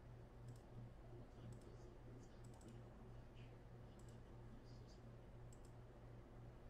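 Near silence: room tone with a steady low hum and a few faint, scattered clicks.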